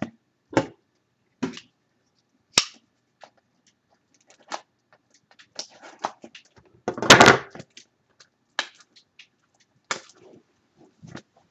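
Cardboard trading-card box being handled and opened: scattered rustles and clicks, a sharp click a couple of seconds in, and a louder, longer rustle about seven seconds in.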